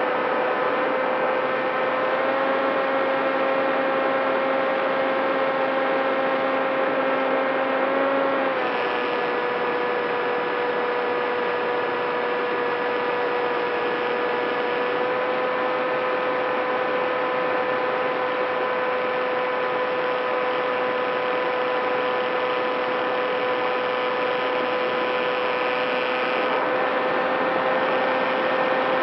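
Electric motor and propeller of an FPV model airplane running steadily in flight, a constant whine over rushing air noise. About eight seconds in the pitch steps down slightly as the throttle eases, then holds.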